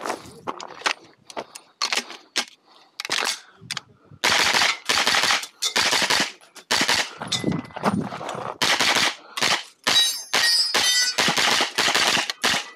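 Pistol-caliber carbine firing a long string of rapid shots. They are sparser and quieter over the first few seconds, then come close together and loud from about four seconds in.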